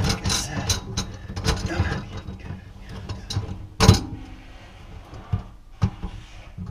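Metal clicks and clinks of a garbage disposal's mounting ring and snap ring being handled and fitted onto a sink flange from below. There is a quick run of small rattles at first and one sharp, louder click about four seconds in.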